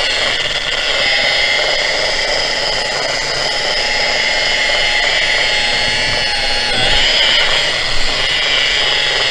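Variable-speed rotary buffer running with its button locked on, its pad polishing an aluminum pontoon tube: a steady motor whine over the rub of the pad on the metal, getting a little louder about seven seconds in.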